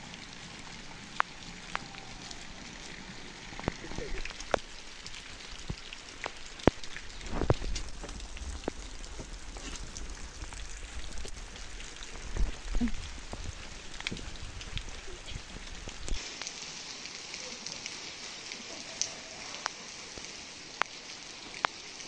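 Steady rain falling on wet ground and concrete, with scattered sharp drip-like taps and a few low thuds through the middle.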